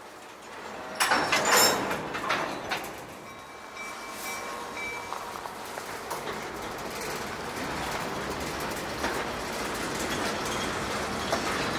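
Freight cars starting to roll: a burst of loud clanking about a second in as the couplers take up slack, then the steady clatter and rumble of steel wheels rolling slowly over the rails, with a faint thin wheel squeal a few seconds in.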